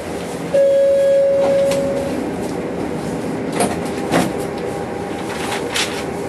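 Tram standing at a stop with a steady hum, a single long beep about half a second in that lasts about a second and a half, then a few short knocks and clunks.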